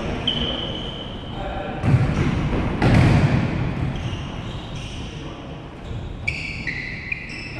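Futsal ball being kicked and bouncing on a wooden gym floor, two loud knocks about two and three seconds in that echo around the large hall. Short high squeaks of players' shoes on the floor come near the start and again near the end.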